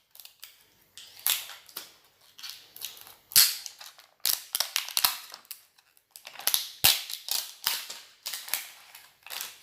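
Plastic wrapping of an LOL Surprise toy package crackling and crinkling as it is peeled and torn open by hand, in irregular sharp bursts with a few louder snaps.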